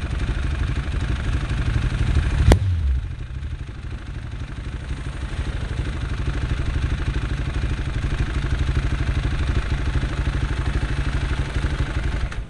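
Motorcycle engine idling close by with a fast, even pulse. A sharp knock comes about two and a half seconds in, and the engine sound drops a little, then slowly builds again.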